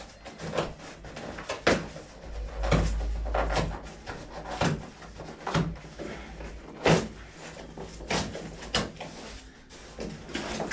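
Large cardboard box being pulled open and handled: crinkling and scraping cardboard with a string of knocks and bumps, and a heavier low bump about three seconds in, as a solar panel is worked out of its packaging.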